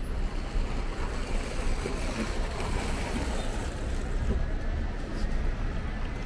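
Steady street traffic noise, an even hiss over a low rumble.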